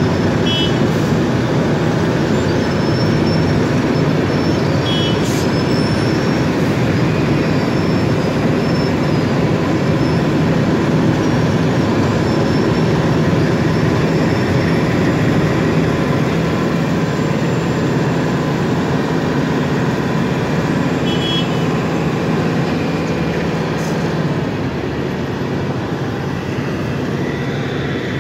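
Wirtgen cold milling machine running as it mills the road: a loud, steady diesel drone over dense grinding noise. A few brief high beeps sound over it, and the noise eases slightly near the end.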